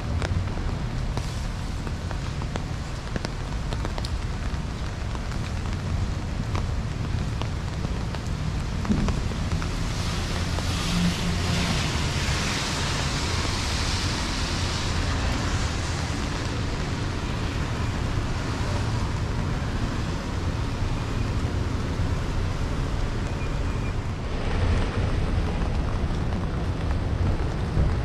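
Rain on a city street with traffic, over a steady low rumble. Tyres hiss on wet pavement as a car passes, swelling about a third of the way in and again near the end.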